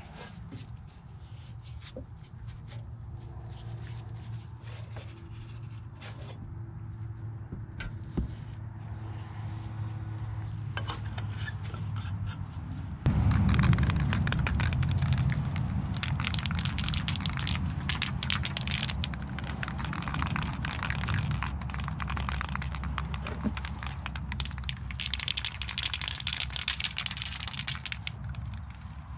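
A power tool working the metal toolbox: a steady motor hum with scraping and rubbing. About 13 seconds in it jumps suddenly louder and rougher, and stays that way.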